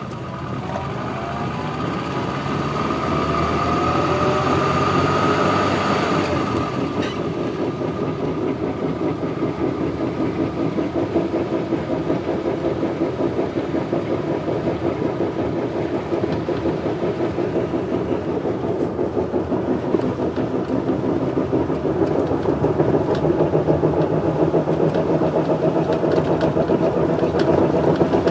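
Classic Mini engine running with a constant knocking and whining noise. The whine rises in pitch over the first few seconds, then holds steady over a fast, even beat.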